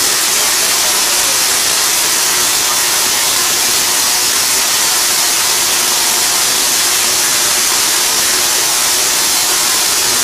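500,000-volt Tesla coil running continuously, its spark streamers arcing into the air with a loud, steady hissing buzz.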